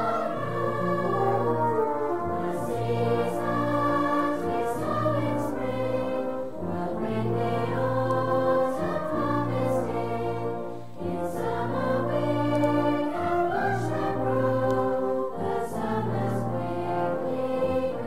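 Music: a choir singing sustained notes over orchestral backing with a low bass line that changes note every second or two.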